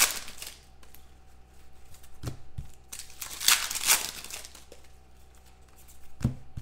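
Foil trading-card pack wrapper crinkling and being torn open, in two rustling bursts, the second and louder one about three and a half seconds in, with a couple of short sharp clicks as the cards are handled.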